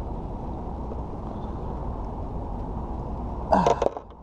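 Steady low rumble of wind buffeting the action camera's microphone, which cuts out near the end, just after a brief loud sound that falls in pitch.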